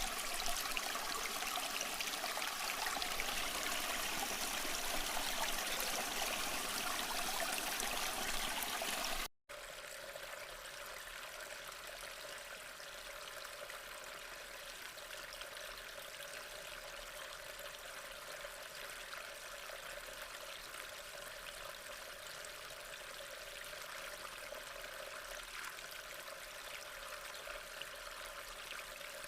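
Flowing water: a louder, full rushing flow for about nine seconds, then a sudden brief drop to silence, then a quieter, steady stream of water.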